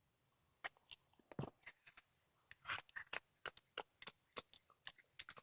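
Cat chewing a squirrel, a rapid, irregular run of short crunches and clicks as its teeth work through the carcass, starting about half a second in.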